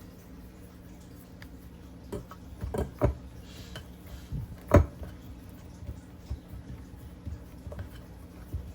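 A few short knocks and taps from handling a metal muffin pan while dough is pressed into its cups. The loudest knock comes about five seconds in, over a faint steady hum.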